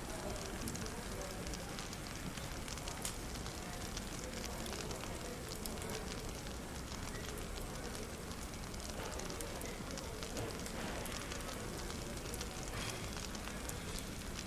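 Fireplace crackling, with many small sharp pops coming thick and irregular, over the steady background hum and faint indistinct murmur of a cafe.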